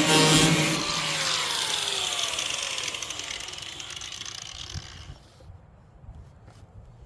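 Handheld power grinder on sheet metal, running at full speed briefly, then switched off; its whine falls in pitch as it spins down and fades out over about four seconds. A few faint clicks follow near the end.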